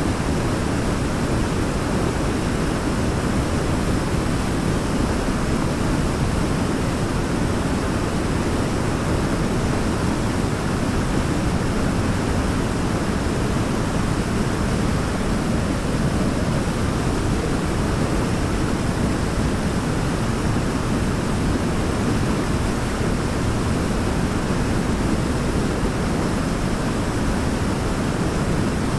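Waterfall: falling water pouring steadily in a deep, even rush with no changes.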